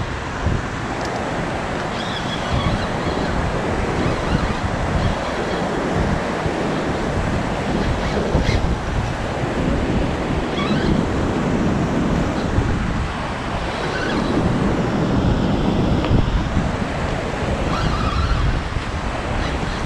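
Steady rush of churning water from a spillway outflow, with wind buffeting the microphone.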